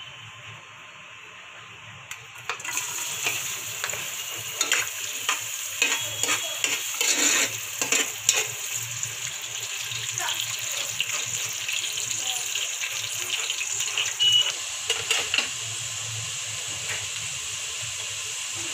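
Chopped onions frying in hot oil in an aluminium pressure cooker, the sizzle jumping up when they go in about two and a half seconds in and then running steadily. A steel spoon stirs and scrapes against the pan through much of the middle.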